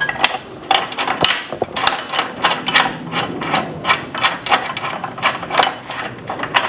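An irregular series of sharp taps and knocks, about three or four a second, from hand work on front splitter mounting hardware.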